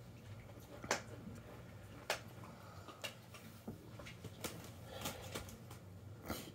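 Quiet room tone: a low steady hum with a handful of faint, irregularly spaced clicks.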